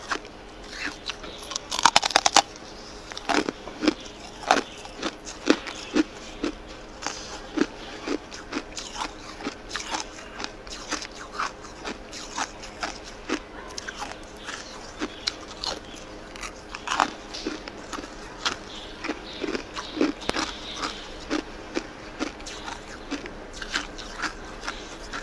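A chunk of clear ice being bitten and chewed close to the mouth. A burst of loud crunches comes about two seconds in, then a steady run of sharp, separate crunches and cracks as the pieces are chewed.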